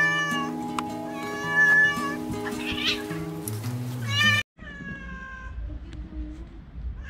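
Domestic cats meowing: several loud, insistent meows from a tabby cat over steady background music, then, after an abrupt cut, a single quieter meow from another cat that falls in pitch.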